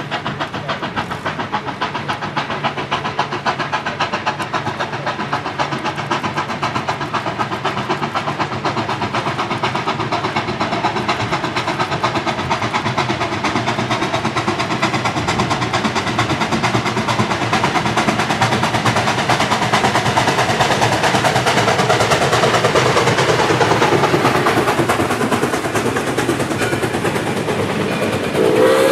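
ALCO 2-8-0 Consolidation steam locomotive No. 60 running past with rapid, steady exhaust chuffs. They grow louder as it approaches, are loudest about two-thirds through, then ease as the freight cars roll by. A steam whistle starts sounding right at the end.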